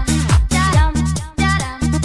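Background electronic dance music with a steady kick-drum beat, about two beats a second, under pitched synth lines.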